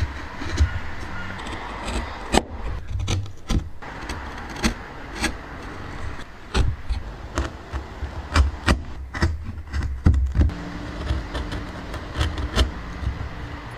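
Wooden pieces being handled and tapped together: irregular sharp knocks and clicks over a steady low hum.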